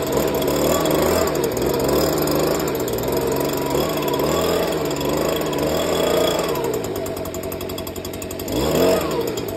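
Leaf blower running, its engine speed rising and falling as the throttle is worked. It dips near the end, then revs back up, blowing loose dirt off landscape fabric.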